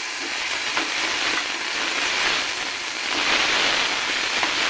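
Chopped tomatoes with salt sizzling in hot oil in a nonstick kadhai while a spatula stirs them, with a few light taps of the spatula against the pan. The sizzle swells a little about three seconds in.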